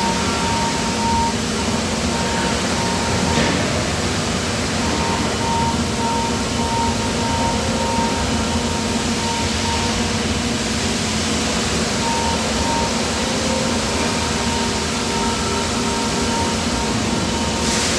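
Steady din of die casting plant machinery, with a high tone that keeps switching on and off.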